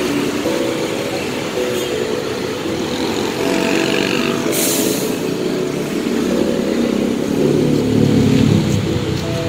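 Busy road traffic: motorcycles, cars and a heavy truck idling and pulling away, a continuous mix of engine hum and tyre noise. There is a short high hiss about halfway through, and an engine revs up near the end.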